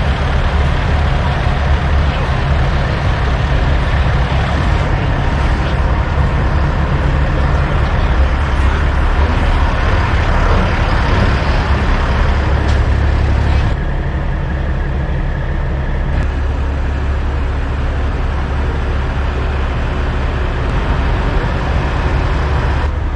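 Diesel semi truck engines idling: a steady, low rumble with a haze of noise above it. It drops slightly in level about two-thirds of the way through.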